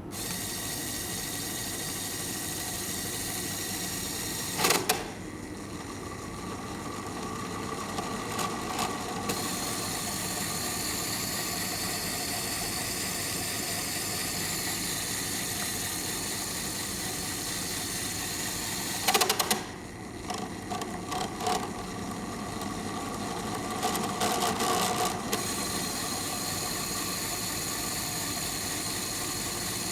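Small electric motor of a motorized fridge spinner running steadily with a whir, broken by a few sharp clicks and knocks, with a short clatter near the end.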